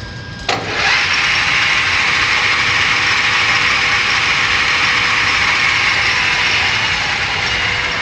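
Metal lathe started with a click of its push-button switch about half a second in, then the motor, headstock gearing and chuck running steadily at speed with a loud, even whir.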